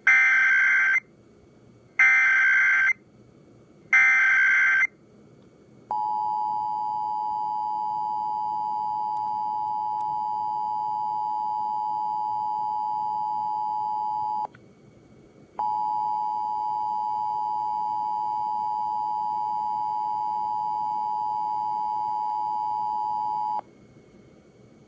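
Emergency Alert System test alert. It begins with three loud data bursts of the SAME header, each about a second long and a second apart, coding a National Periodic Test. Then comes the steady two-tone EAS attention signal, which drops out for about a second midway and stops shortly before the end.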